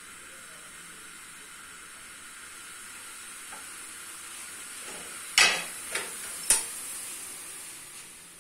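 Milk boiling up in a stainless steel pot on a gas burner: a steady sizzling hiss that slowly grows louder as the foam rises to the rim. Three sharp pops come a little past the middle.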